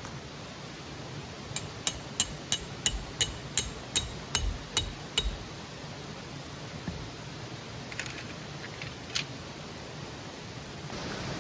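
A run of about a dozen sharp, ringing metal taps, roughly three a second, then two single taps a few seconds later, over a steady hiss of the stream.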